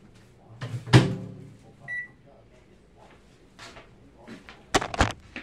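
A single short electronic beep, like a kitchen appliance's, about two seconds in. A loud thump comes about a second in, and sharp knocks and clatter come near the end.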